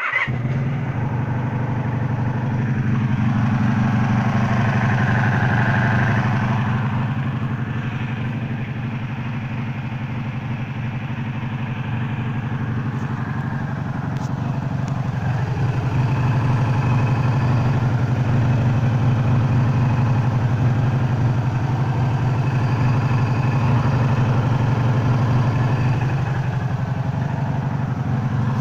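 1984 Honda Magna V30's V4 engine running steadily at idle, with a buzzing that the owner traces to the clutch or crankcase and cannot identify, while the rest of the motor runs smoothly. It gets somewhat louder about halfway through.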